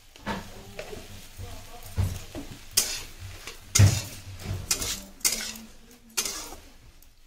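Spoon stirring and scraping vegetables frying in a metal kadai: a string of scrapes and clinks against the pan, the loudest about four seconds in.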